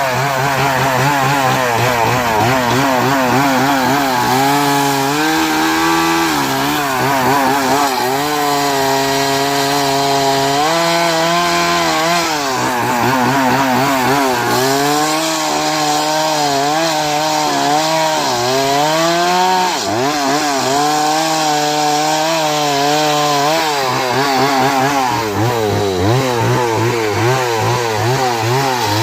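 Chainsaw running hard while cutting into a big tree, its engine pitch wavering and sagging several times as the chain loads up in the wood, then picking back up.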